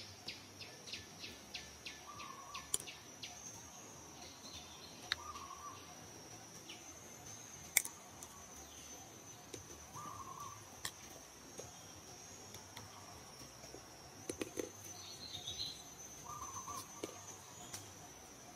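Forest ambience: a steady high-pitched insect drone with a bird giving a short call every few seconds. A rapid run of ticks fades out in the first few seconds, and there are a few sharp clicks, the loudest about eight seconds in.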